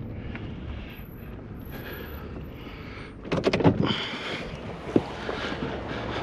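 Steady low rumble of a vehicle with wind on the microphone, broken by a quick cluster of knocks and clatters about three and a half seconds in and one more knock about five seconds in.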